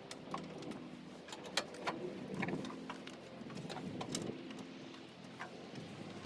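Scattered light clicks and knocks over a low, steady hum.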